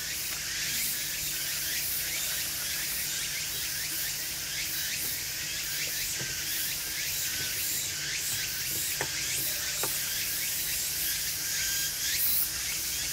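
Steady high-pitched chorus of summer insects, thick with many quick short chirps, with two faint clicks about nine and ten seconds in.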